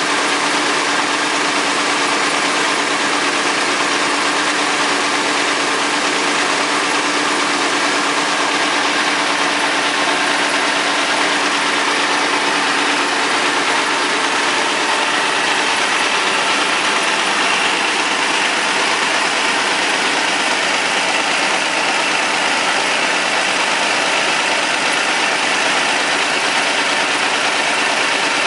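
Vintage Caterpillar D13000 six-cylinder diesel engine running at a steady speed with a constant hum, belted to a sawmill.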